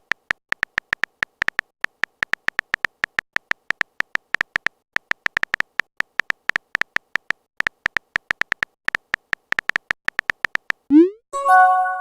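Phone keyboard typing sound effect: a rapid, irregular run of short clicks, about four or five a second. Near the end comes a quick rising swoop and a short chime-like tone, a message-sent alert.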